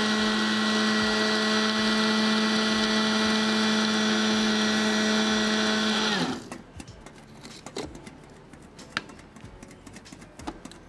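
Small electric food chopper running at a steady pitch while it grinds cookies into crumbs, then winding down and stopping about six seconds in. Faint scattered clicks follow.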